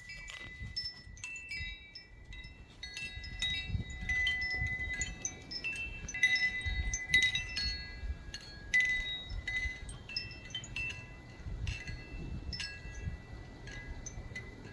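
Wind chimes ringing, many overlapping tones struck at random, busiest from about three to ten seconds in, over a low rumble.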